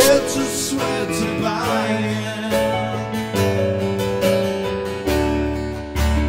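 Steel-string acoustic guitar strummed with chords on a Roland RD-64 digital piano, an instrumental gap between sung lines, with a firmly struck fresh chord near the end.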